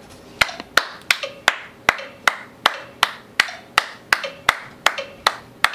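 Hand claps in a steady, even beat, about three claps a second, kept up for some fifteen claps.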